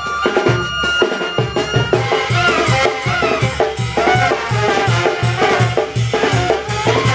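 Live Oaxacan brass banda playing a dance tune: trumpets carry the melody over a tuba and a steady beat of bass drum, snare and cymbal.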